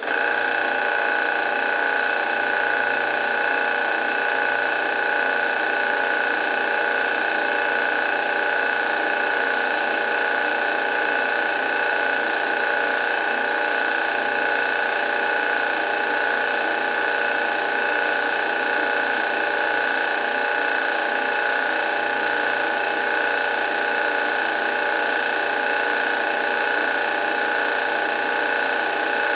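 Drill press motor running at a steady speed, a constant mechanical whine with no change in load or speed.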